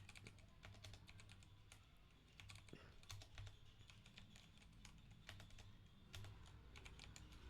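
Faint typing on a Kreo computer keyboard: quick, irregular key clicks.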